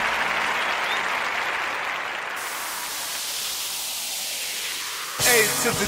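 Crowd applause fading away over about five seconds. Then a gospel rap track with a vocal cuts in abruptly near the end.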